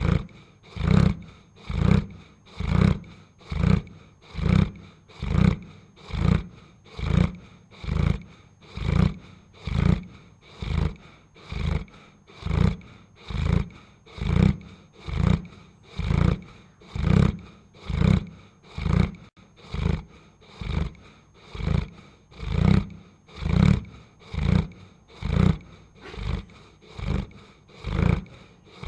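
Dog snoring: deep, evenly repeating snores, a little more than one a second.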